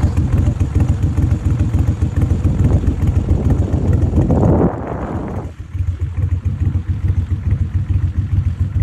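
Boat's outboard motor running steadily underway, with a brief louder surge a little before halfway through.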